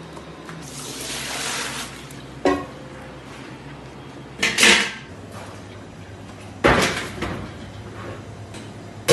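Metal clanks of a wire basket knocking against a large stainless-steel pot, several sharp knocks a couple of seconds apart, the loudest ones ringing on briefly. A rushing hiss comes about a second in.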